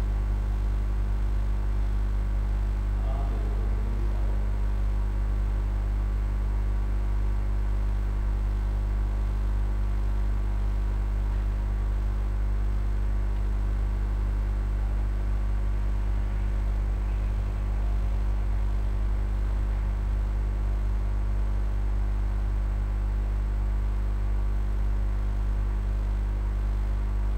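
Steady electrical mains hum: a low, even buzz at the mains frequency with a stack of overtones, unchanging throughout. A faint brief sound appears about three seconds in.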